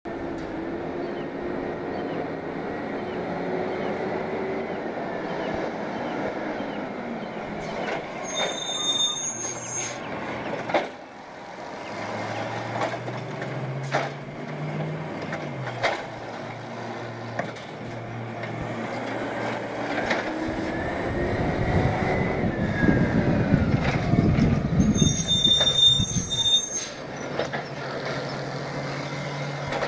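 Peterbilt 320 automated side-loader garbage truck at work: its engine running while the hydraulic arm whines, lifting and emptying a wheeled trash cart, with sharp knocks and bangs of the cart against the hopper. A heavier rumble builds late on.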